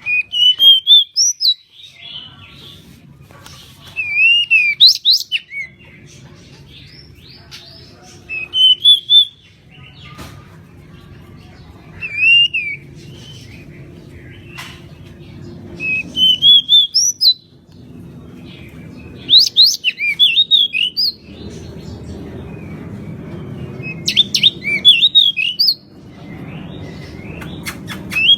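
Pied bushchat (decu) singing: about seven short phrases of quick rising and falling notes, each a second or so long and a few seconds apart, over a faint low background rumble.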